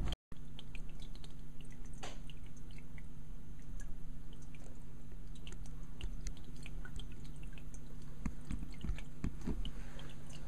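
Aquarium pump humming steadily, with many small water ticks and drips over it and a few soft low knocks near the end.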